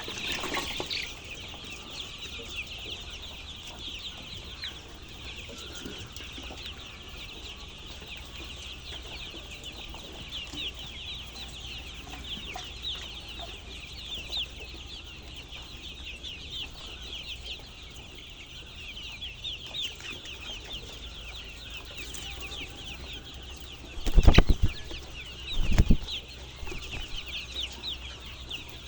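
A flock of chickens calling continuously, a dense chorus of many short, high, overlapping peeps. Two loud low thumps come near the end.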